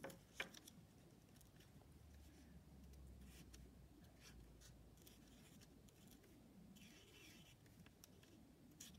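Faint scratching of a felt-tip marker drawing on a small piece of card, with a light knock just after the start.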